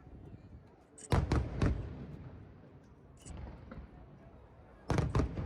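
Aerial fireworks shells bursting: three sharp bangs in quick succession about a second in, then two or three more near the end, each dying away after the blast.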